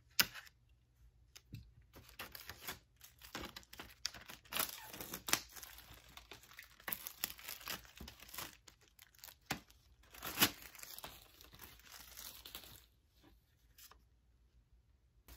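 Packaging of a laptop shell case being torn open and crinkled by hand: irregular rips and rustles, with sharp rips right at the start and about ten seconds in, dying down to quieter handling near the end.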